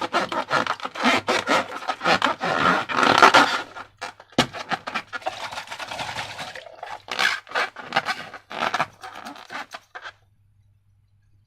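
Slime being mixed and squished by hand, a run of irregular scraping, sticky strokes that stops about ten seconds in.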